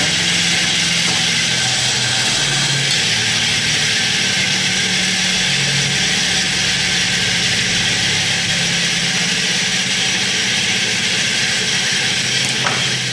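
Steady whirring noise with a low hum underneath, unchanging throughout.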